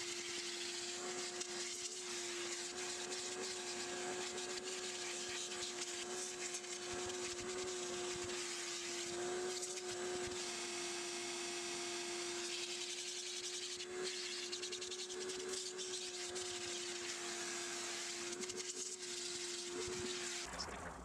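Shop vacuum running with a steady, even hum while its hose nozzle is worked over car floor carpet. The hum cuts off shortly before the end.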